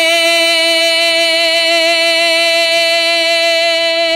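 A man singing a naat, holding one long, steady note through the whole stretch without a break.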